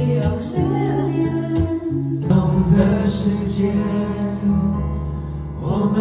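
Karaoke songs playing with singing: a slow song over guitar that cuts abruptly, about two seconds in, to a different, fuller song with a strong bass line.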